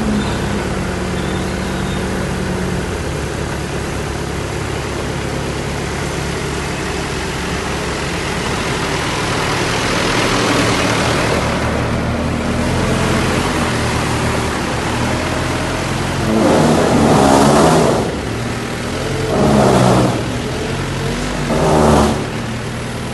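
Diesel engine of a heavy construction machine running steadily, then revving up in three louder surges in the last third.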